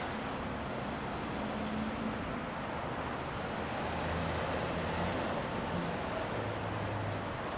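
Steady outdoor construction-site and traffic noise, with the low hum of engines rising and shifting in pitch now and then.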